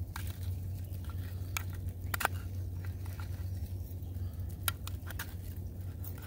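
A metal spoon prodding and scraping a freshly baked blueberry loaf in a small metal loaf pan: scattered light clicks and taps, a few sharper ones, over a low steady hum.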